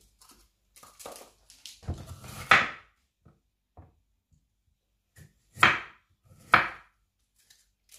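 Kitchen knife cutting a yellow bell pepper on a wooden cutting board: a handful of separate chops with pauses between, the loudest about two and a half seconds in and twice more near the end.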